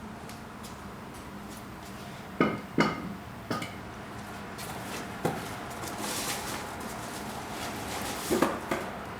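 Sharp metal clanks and knocks, three close together a little after two seconds in, one near the middle and a cluster near the end, as a car alternator is tilted and lifted out of the engine bay.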